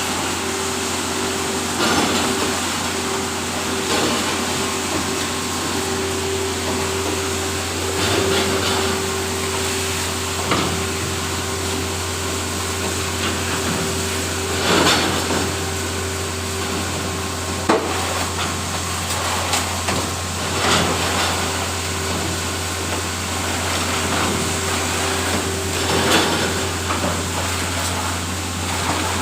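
Tray washing machine running with a steady hum and a constant mid-pitched tone. Sharp knocks and clatter come every few seconds.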